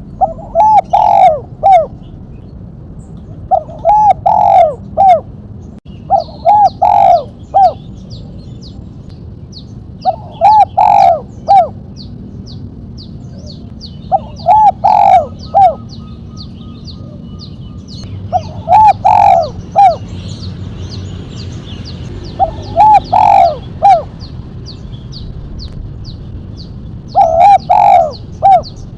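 Spotted dove (tekukur) singing its cooing song in the 'mercik' style, a phrase of three or four quick coos repeated eight times, about every three to four seconds. A faint rapid high chirping runs underneath from about a third of the way in.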